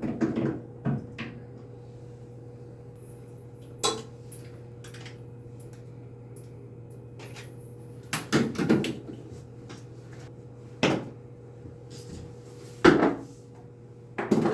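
Scattered knocks and clatters of hard objects being handled, several seconds apart, the loudest near the end, over a steady low hum.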